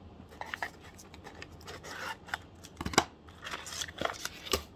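Corrugated cardboard sleeve box slid open and a paper card and packaging handled: dry rustling and scraping of cardboard and paper with scattered clicks, and a sharp knock about three seconds in.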